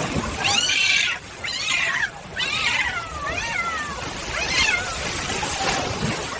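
Cat meowing, about five drawn-out calls that rise and fall in pitch.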